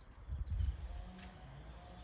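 Footsteps on a woodland path, with a loud low thump about half a second in and a short crunch a little past a second.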